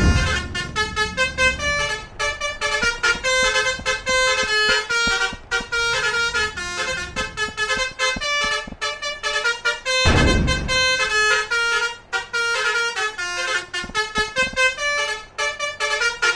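Multi-tone 'telolet' bus horn (basuri horn) playing a fast tune of short stepped notes. A loud rushing noise cuts in about ten seconds in.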